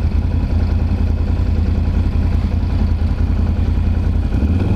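Can-Am Renegade 1000 XXC quad's Rotax V-twin engine running steadily at low speed, its note shifting about four seconds in.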